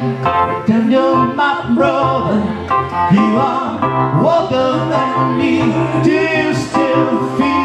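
Male vocals singing a slow pop ballad over a piano sound from a Yamaha MOX synthesizer keyboard, with held chords and a moving vocal line.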